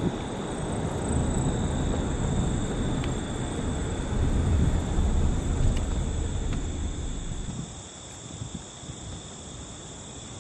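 Low rumble of a car driving on a gravel road, with a steady high-pitched whine over it. The rumble falls away about eight seconds in.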